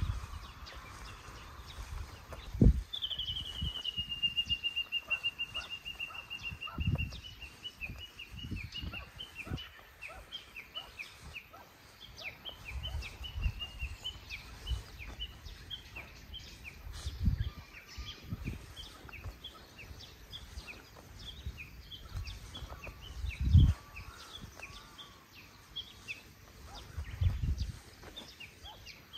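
Japanese bush warbler singing its 'valley-crossing' call series (tani-watari): a long whistle that slides down and levels off, then a long run of short, quickly repeated notes, about two a second. Low thumps come and go beneath it, the loudest about three seconds in and again near twenty-four seconds.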